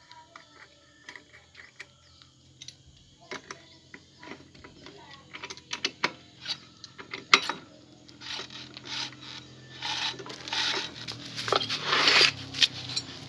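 Metal clicks, clinks and ratcheting of hand tools and parts as a motorbike's CVT roller bowl is refitted. The strokes come sparse at first and grow busier, with the loudest run of rattling near the end.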